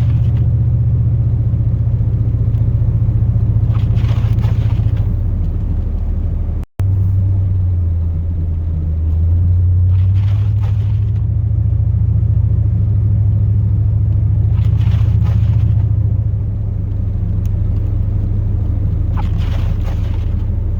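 Pickup truck engine and road noise heard from inside the cab of a Chevrolet Silverado plow truck: a steady low drone that shifts in pitch about eight seconds in. A brief hiss comes roughly every five seconds, and the sound cuts out for an instant about seven seconds in.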